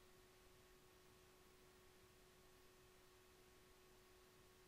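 Near silence: faint hiss with a steady, faint, unchanging hum.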